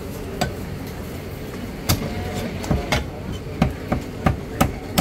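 Chinese cleaver chopping roast duck on a thick wooden chopping block: about seven sharp chops at irregular intervals, coming closer together in the second half.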